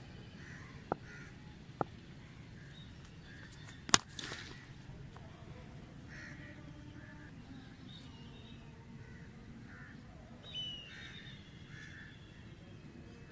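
Crows cawing repeatedly. About four seconds in, a single loud sharp crack of a cricket bat striking the ball.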